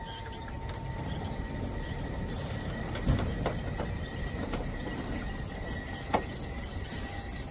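Electric trolley line car rolling slowly along the rails: a steady low rumble with a faint, steady high squeal, a clunk about three seconds in and a sharp click about six seconds in.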